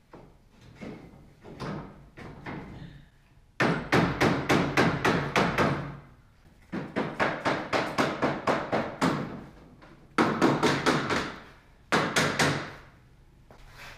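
Cordless impact driver fastening L brackets to a metal C-channel frame. It runs in four bursts of rapid, even hammering clatter, each one to two and a half seconds long, after a few fainter knocks in the first seconds.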